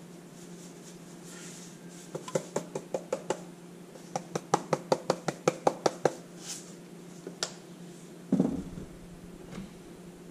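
Rapid runs of sharp clicks as sea salt is dispensed from a handheld container, about seven clicks a second at their fastest, then a single heavier thump about two seconds before the end.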